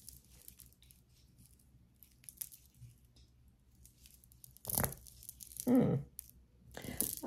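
Hands handling jewelry and its packaging: faint rustling, with two sharper crinkles, about two-thirds of the way through and near the end, and a brief murmur of voice between them.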